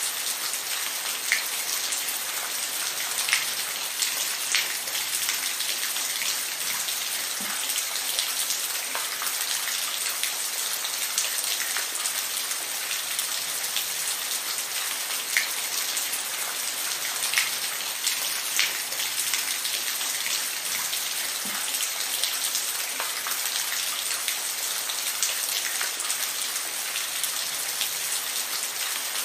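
Steady rain falling, a continuous hiss with scattered louder drops striking a surface every second or two.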